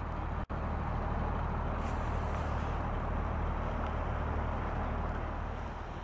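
Diesel engine of a Junttan PM 25H pile driving rig running steadily with a low hum, with no hammer blows. The sound drops out for an instant about half a second in.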